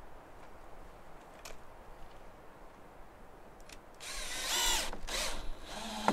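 Cordless drill-driver driving a screw into a wooden rail to mount a small water pump. There are two short runs about four and five seconds in: the motor's whine rises in pitch as it speeds up, and a click comes near the end.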